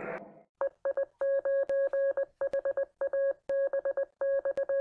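Morse code sent as a keyed tone: a steady beep switching on and off in short and long elements, in groups separated by brief pauses.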